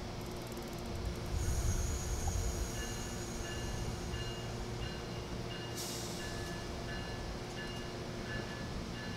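Amtrak Northeast Regional passenger coaches rolling slowly past with a steady low rumble of wheels on rail. Faint, broken wheel squeal comes and goes, and there is a brief hiss about six seconds in.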